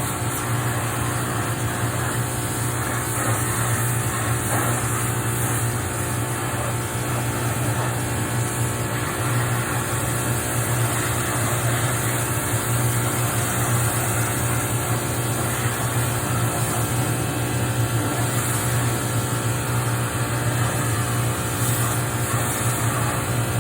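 Pressure washer running steadily, its motor humming under a constant hiss of water spray.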